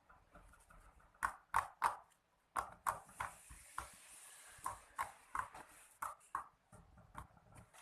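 Slime being pressed and squished by hand, giving a run of short, irregular wet pops and clicks.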